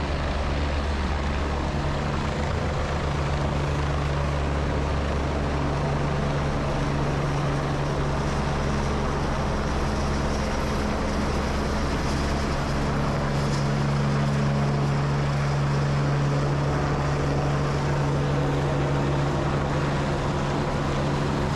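Helicopter flying close by, its rotor and engine running steadily at a constant pitch, with no rise or fall in loudness.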